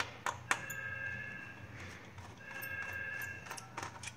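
A telephone ringing twice, each ring a steady tone about a second long with a short gap between. A few sharp clicks sound just before the first ring.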